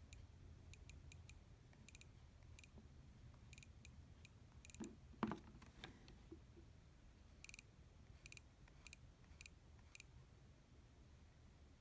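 Faint, irregular small clicks from a Creative Zen Micro MP3 player being handled and its controls pressed, with one louder knock about five seconds in.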